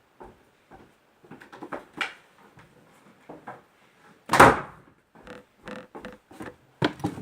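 Pokémon trading cards being handled and flipped through: scattered short rustles and clicks of cards sliding against each other, with one louder swish about four and a half seconds in.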